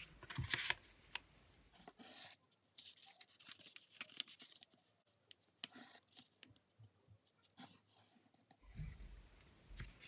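Faint rustling of a sheet of origami paper being turned over and folded in half by hand on a mat, with scattered light crinkles and taps.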